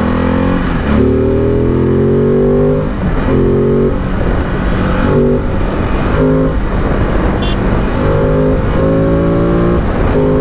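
Ducati DesertX Rally's 937 cc Testastretta V-twin accelerating hard from a launch. The engine note climbs in pitch, drops back at each of several upshifts, and climbs again.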